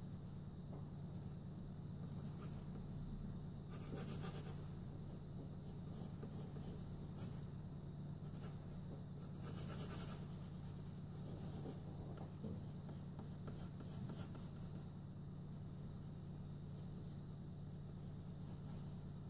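Pencil scratching across paper in irregular sketching strokes, louder in short flurries, over a steady low hum.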